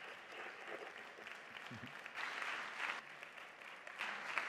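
Audience applauding after a talk, the clapping swelling about two seconds in and again near the end.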